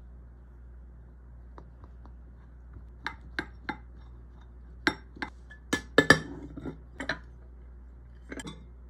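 Tableware knocking and clinking in sharp separate strikes: a plastic rice paddle tapping against a ceramic bowl as cooked rice is packed down, then the bowl handled and turned upside down onto a plate. The loudest knocks come together a little past the middle.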